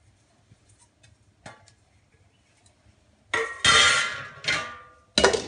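Stainless steel mixer-grinder jar and its lid clattering. There are a few faint taps, then loud metallic clanks that ring on from about three seconds in, and one more clank near the end.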